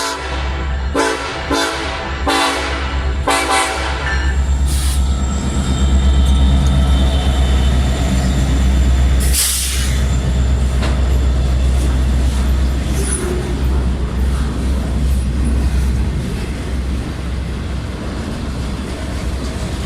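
KCSM SD70ACe diesel locomotive sounding its horn in about four short blasts, then rumbling past with its engine running, followed by bi-level autorack freight cars rolling by. About halfway through there is a brief loud rush of noise.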